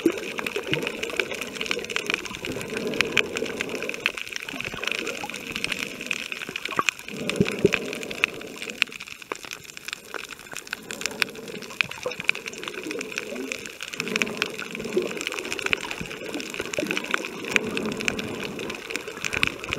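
Underwater sound from a camera held below the surface over a coral reef: a dense, steady crackle of tiny clicks, with muffled low water rushing that swells and fades every few seconds.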